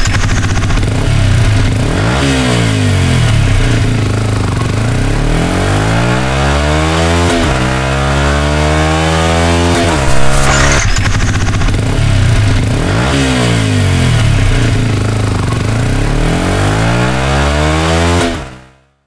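Yamaha YZF-R125's single-cylinder four-stroke engine revving through a GRmoto aftermarket full-system exhaust. The revs climb and snap back down several times, with a sharp pop about ten seconds in, and the sound fades out near the end.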